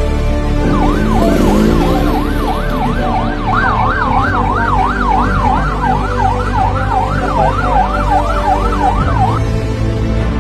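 Police siren yelping, its pitch sweeping up and down about twice a second and quickening a few seconds in, then stopping near the end. Background music runs underneath.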